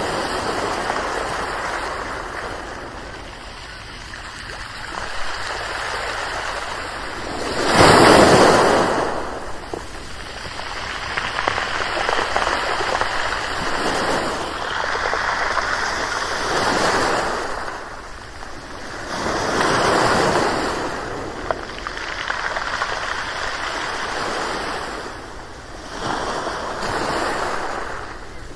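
Ocean waves breaking and washing up the shore, rising and falling in swells every few seconds, with one louder wave crashing about eight seconds in.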